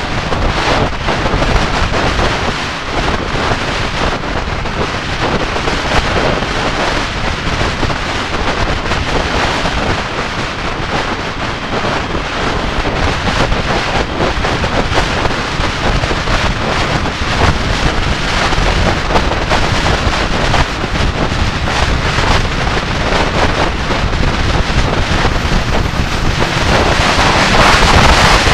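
Wind rushing and buffeting over the microphone of a camera on a motorcycle riding at road speed, a steady roar that drowns out the engine. It grows louder and brighter near the end as the speed picks up.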